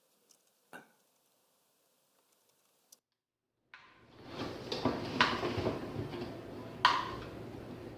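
Raw potatoes being handled and mixed in marinade: a few seconds of wet, crackly handling noise with two sharper knocks, after a near-silent start.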